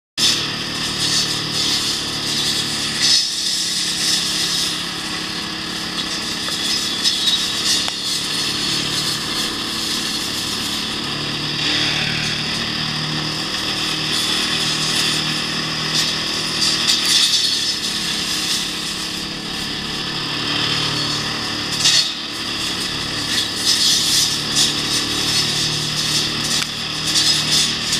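Small Honda 5 hp gas engine of an ATV-mounted limb trimmer running steadily at cutting speed, spinning a stack of belt-driven 13-inch saw blades. Several brief louder bursts come as the blades cut into limbs and brush.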